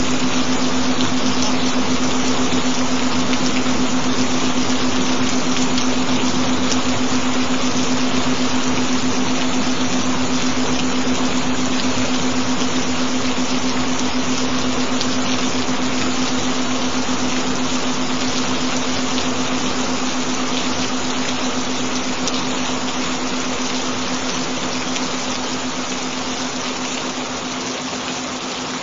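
Steady hiss of recorded gentle rain with a constant low pure tone, a binaural-beat tone, held underneath; the whole mix gradually gets quieter in the second half.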